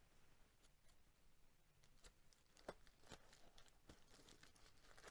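Faint, scattered crinkles and clicks of plastic bubble wrap being handled, the clearest about halfway through and a few more close together near the end.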